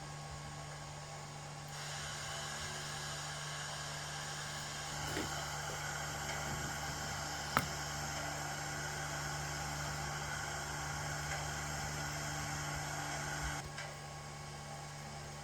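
SDS Models K class model steam locomotive's DCC sound decoder playing a steady hiss and hum through its small speaker. The sound steps up about two seconds in, swells again around five seconds, and falls away near the end, with a single sharp click about halfway through.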